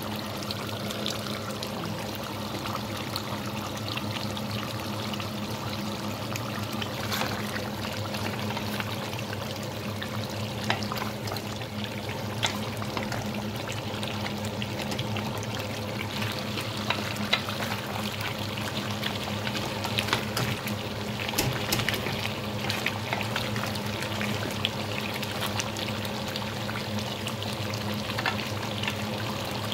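Deer meat curry bubbling at a steady simmer in an open pot, with frequent small pops and spits, over a steady low hum. The gravy is still watery and is being cooked down.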